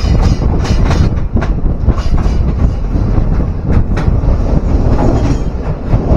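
Moving passenger train heard from beside its coach: a loud steady rumble of wheels on the track, with sharp clickety-clack strikes at uneven intervals as the wheels cross rail joints.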